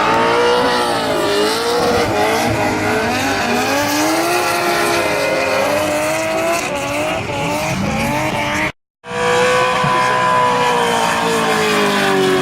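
Drift car engine revving up and down hard through a drift, with tyres squealing. The sound drops out for a split second about three-quarters of the way through, then the engine holds a steadier, slowly falling note.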